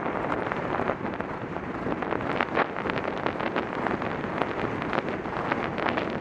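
Wind buffeting the microphone of a helmet camera on a rider moving fast across grass on horseback, a steady rushing noise with the horse's hoofbeats showing through as scattered thuds.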